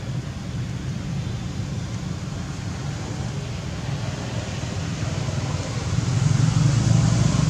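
Steady low outdoor rumble with a faint haze above it, swelling louder for the last second and a half.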